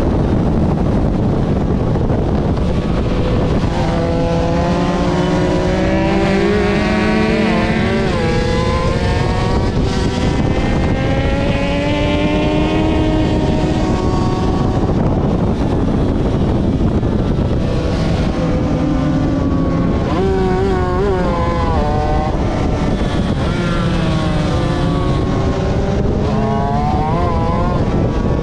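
Aprilia RS250 two-stroke V-twin race motorcycle at racing speed. Its engine note climbs through the revs and drops again several times, with a few short warbling stretches.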